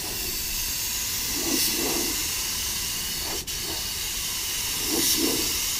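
Steady compressed-air hiss of a gravity-feed paint spray gun laying down a coat of clear, with a momentary dip about halfway through.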